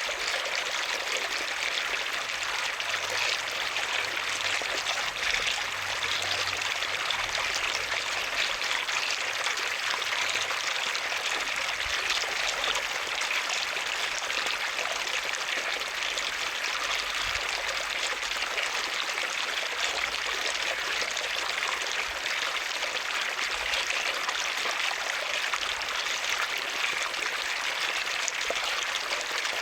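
Running water splashing steadily, an even rush that does not let up.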